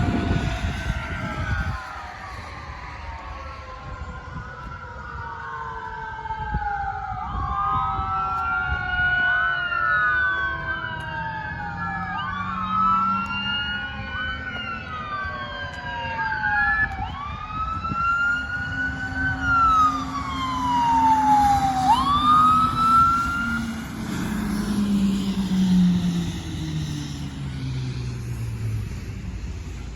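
Several fire-apparatus sirens wailing at once as the trucks respond to a call, their rising and falling tones overlapping, over a vehicle rumble. The sirens take over about two seconds in and are loudest about two-thirds of the way through, where one makes a quick dip and rise. A lower tone slides down in pitch near the end.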